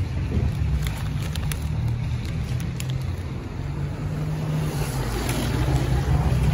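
Street noise: a steady low rumble of road traffic, with wind on the microphone.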